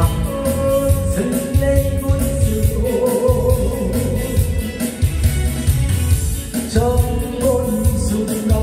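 A man singing a Korean trot song into a microphone over a karaoke backing track. He holds several long notes, and the accompaniment keeps a steady bass beat.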